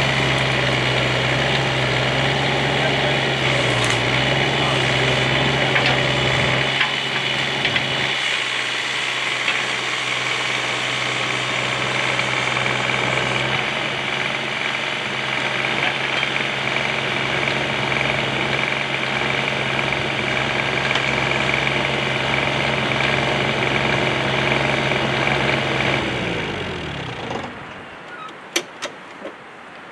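Bobcat 320 mini-excavator's diesel engine running steadily, then winding down and stopping near the end as it is shut off. A few sharp clicks follow.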